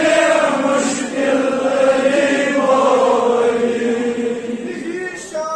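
A group of men chanting a devotional madh in unison, holding long drawn-out notes that rise and fall slowly.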